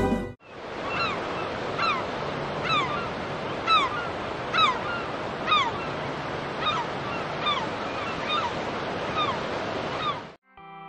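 Sea surf washing steadily on a beach. Over it, a bird gives a short call that slides downward in pitch, about once a second, some ten times.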